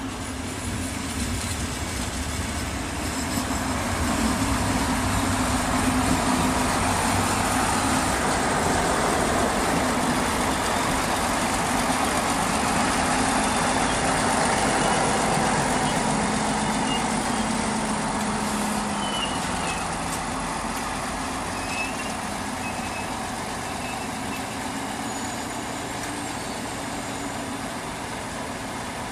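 Slovenske železnice diesel multiple unit pulling into the station, its engine and running gear getting louder over the first few seconds and staying loud as it comes alongside. From about twenty seconds in, it eases a little to a steady engine idle.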